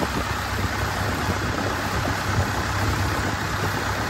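An engine running steadily, a low hum under a wash of noise.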